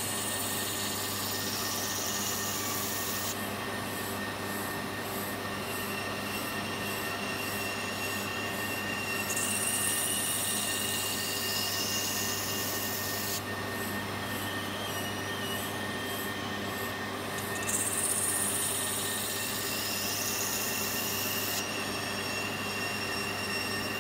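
Edo-kiriko glass cutting: a spinning cutting wheel runs with a steady hum while a glass watch-dial blank is held freehand against it, the glass grinding on the wheel with a steady high whine.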